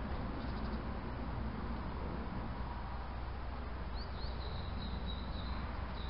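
Small bird calling in the open: a few short high rising chirps about four seconds in, running into a brief high twittering song, over a steady low rumble and hiss.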